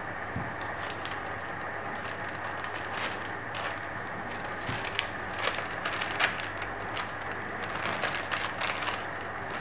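Soft crinkling and rustling clicks as a fabric skirt panel is folded and pressed flat into pleats by hand, over a steady background hiss.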